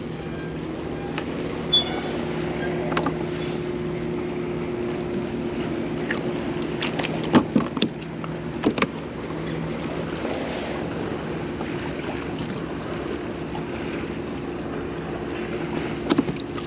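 Steady low engine hum holding one pitch, with a few sharp knocks about halfway through.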